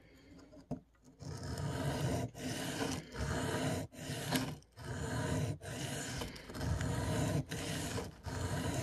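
M4 steel knife blade scraped back and forth across a wet whetstone in a steady run of strokes, just over one a second, starting about a second in: cutting the edge bevel on one side of the blade.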